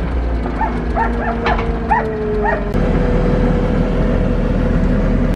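A dog barking in a quick run of short, high yips during the first half, over a steady engine drone that steps up in pitch and gets louder about halfway through.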